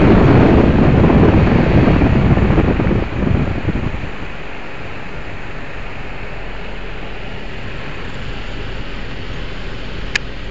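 Wind buffeting the microphone over the road noise of a moving car. It is loud for the first few seconds, then drops to a steady rush of cabin road noise. A single short click comes near the end.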